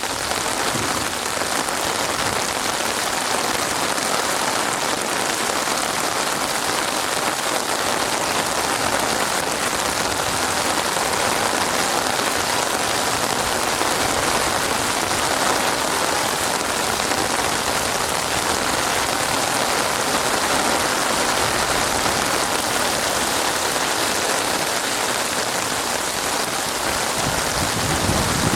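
Steady heavy rain falling on a surface, a dense, even hiss of drops.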